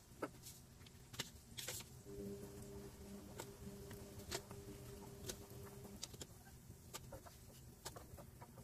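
Faint frying of donuts in a pan of oil, with scattered light clicks and taps as a wooden spatula and chopsticks turn and lift them. A low buzzing hum comes in about two seconds in and stops about six seconds in.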